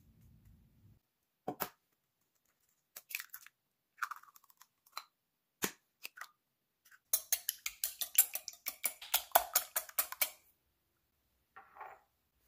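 Eggs being cracked and dropped into a glass bowl, a few separate knocks and clicks, then the eggs beaten with a fork or whisk against the glass in a fast run of about eight clicks a second. Near the end there is a brief soft rustle.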